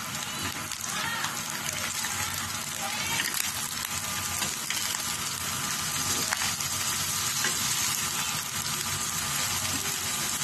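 Green beans and ground meat sizzling steadily in a stainless steel skillet as they stir-fry.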